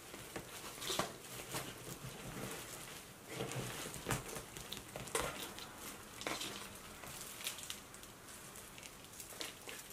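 Hands digging a rooted chunk of Hoya curtisii out of a pot of dry potting soil: faint, irregular rustling and crackling of dry leaves and soil, with scattered small clicks and soil falling from the roots.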